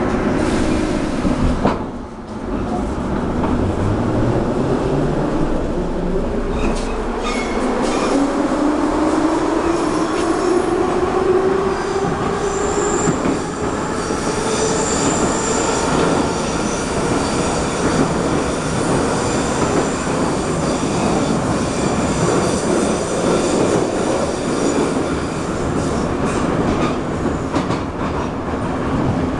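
Metro train heard from inside the car: the traction motors' whine climbs steadily in pitch as the train gathers speed over the first dozen seconds or so, then levels off into steady running, with wheel-on-rail rumble and a thin high squeal from the wheels.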